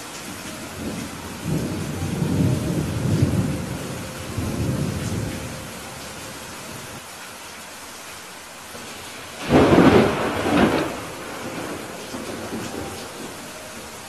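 Steady rain with thunder: a low rolling rumble over the first few seconds, then a sharper, louder thunderclap about two-thirds of the way through that fades after a second or so.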